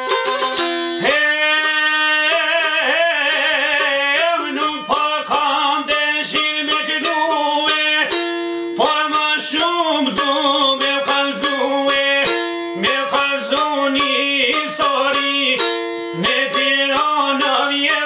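Çifteli, the Albanian two-string long-necked lute, played solo with rapid picked strokes: a quick melody on the upper string over a low sustained note that steps between two pitches.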